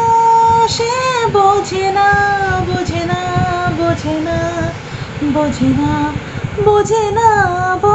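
A woman singing a slow tune, holding long notes that bend up and down.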